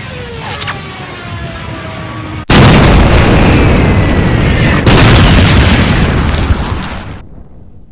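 Artillery shell explosions: a falling whistle, then two loud blasts about two and a half seconds apart, the noise cutting off suddenly shortly before the end.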